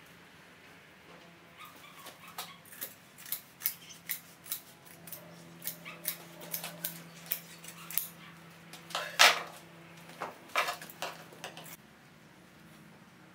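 Large upholstery shears snipping through fabric, a steady run of short snips with a couple of louder clacks near the end. A low steady hum sits under the second half.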